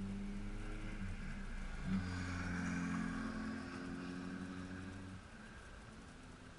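A car driving past, its engine hum and tyre noise swelling to a peak in the middle and the engine sound dropping away about five seconds in, with a brief sharp knock about two seconds in.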